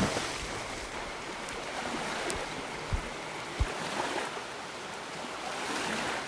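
Steady rushing of water, with two soft low thumps about three seconds in.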